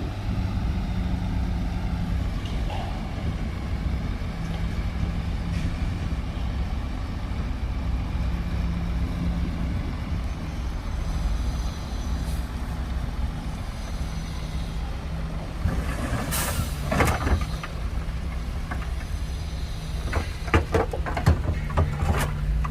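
Heavy diesel earthmoving machinery running steadily with a low drone. About two-thirds of the way through comes a loud hiss, and near the end a quick series of sharp knocks.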